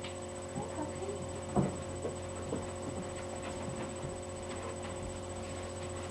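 Steady electrical hum with a few faint clicks and knocks over it, the clearest about a second and a half in.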